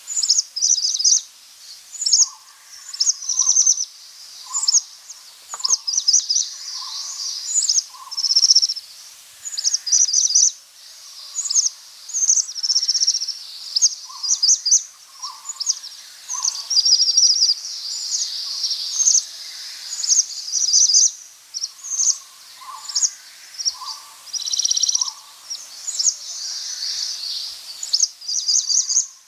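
Sparrow chirping: a continual string of short, high chirps and quick trilled runs, a few each second, with fainter lower notes among them.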